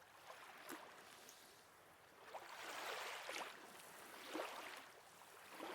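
Faint sea waves washing in the background, the wash swelling and easing a couple of times.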